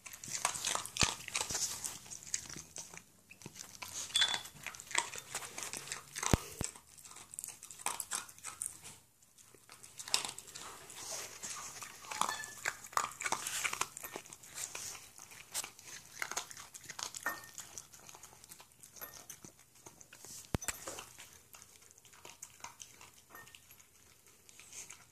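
A West Highland white terrier eating dog food from a metal bowl: irregular crunching and chewing, with a brief pause about nine seconds in.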